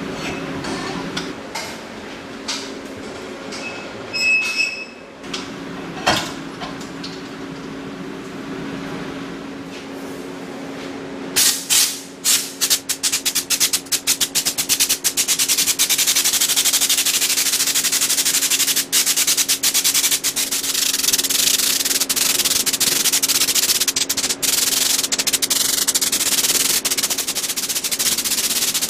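A compressed-air underseal (schutz) gun spraying textured underbody coating, a loud steady hiss that starts about eleven seconds in and is broken by many brief trigger stops. Before it come a few metal knocks and clicks over a steady low hum.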